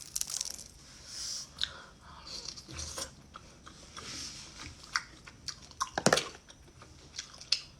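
Someone chewing and biting into seafood at close range: an irregular run of sharp clicks and short wet bites, loudest about six seconds in.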